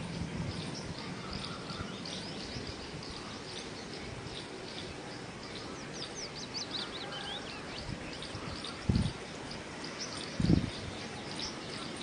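Several small songbirds chirping and singing, with a quick descending run of notes about six seconds in. Two short low thuds come near the end.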